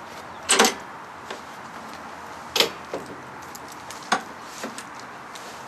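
Damaged Indian Chief V-twin engine being kicked over, giving three loud metallic clunks about two seconds apart, the last two each followed by a smaller knock. The owner takes it for a broken connecting rod or piston bouncing around in the front cylinder.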